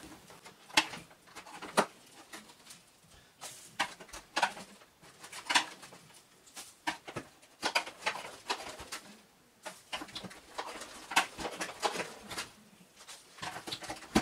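Screwdriver scraping and prying at dust packed into the plastic duct of a clogged upright vacuum cleaner, in irregular short scrapes and clicks.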